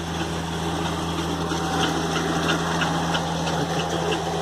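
An engine running steadily at idle: a constant low hum that does not change in pitch.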